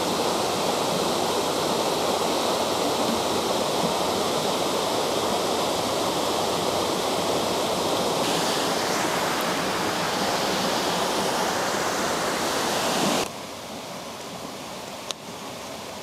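Small woodland waterfall running high after days of rain, its water cascading over boulders in a steady full rush. About thirteen seconds in the rush drops suddenly to a quieter level, with a faint click or two near the end.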